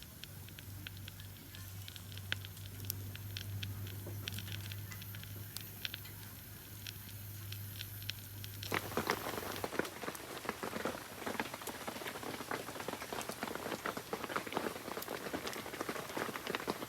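Food sizzling in a hot pan: at first only scattered ticks over a low steady hum, then about nine seconds in a dense, crackling sizzle starts suddenly and keeps going.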